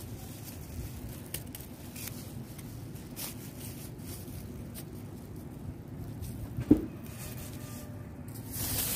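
Quiet handling of nylon fishing line and a metal swivel, with faint small clicks, a single knock about two-thirds of the way through, and a clear plastic bag crinkling near the end.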